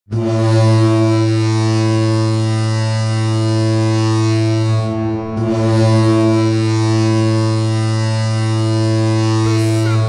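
Hockey arena goal horn: one long, loud, low-pitched blast like a ship's horn, briefly thinning out about halfway through before sounding full again.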